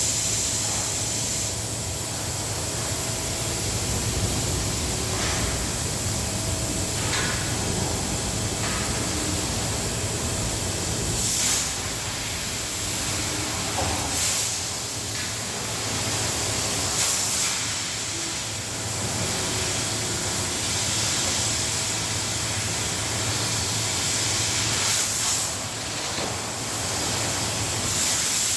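CNC cutting machine running: a steady hiss over a low hum, with a few brief louder surges of hiss.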